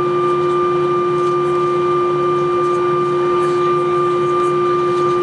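Airbus A321 engines running at taxi power, heard from inside the cabin over the wing: a steady whine made of several held tones over a low rumble.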